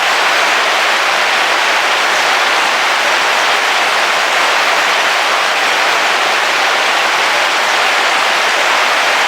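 Heavy rain falling steadily on a car's roof, heard from inside the car as an even, unbroken hiss.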